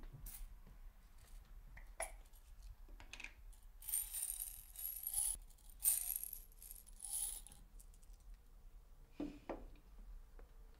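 A light jingling rattle in three short bursts in the middle, with a few soft knocks before and after.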